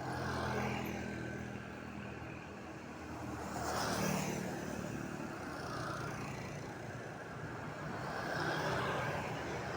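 Street traffic: vehicle engines running steadily, with passing vehicles swelling louder about half a second in, around four seconds in, and near the end.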